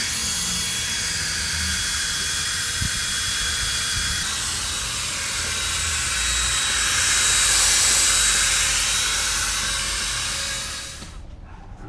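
Hand-held hair dryer running steadily on hot air, heating the adhesive of freshly applied double-sided tape: a loud rushing of air with a thin motor whine. It swells a little past the middle and then switches off about eleven seconds in.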